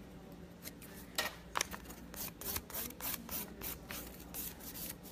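Cuticle pusher scraping back the cuticle along the base of a gel nail in quick short strokes, about three or four a second, starting about a second in.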